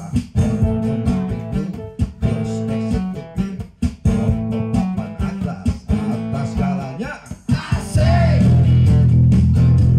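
Live band music: an acoustic guitar strummed in a steady rhythm with keyboard backing and a singing voice. About eight seconds in, the sound changes abruptly to a louder, sustained, bass-heavy chord.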